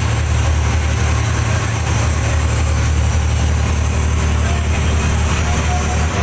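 Fishing boat's engine running steadily with a loud, constant low drone.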